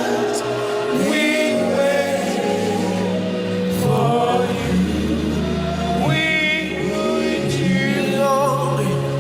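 Gospel worship music: a group of voices singing over sustained bass and keyboard chords.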